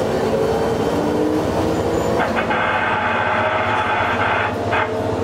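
Diesel railcar's engine running under power as the train pulls away, its pitch rising slowly. About midway a steady high tone sounds for about two seconds.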